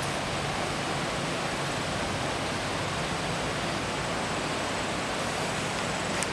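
Brook water rushing steadily, an even wash of noise, with a faint click near the end.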